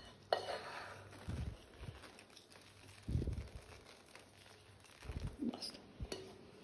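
Quiet kitchen handling sounds of cooked onion slices being laid onto raw focaccia dough on a baking tray with fingers and a wooden spoon: a light rustle near the start and a few dull low bumps.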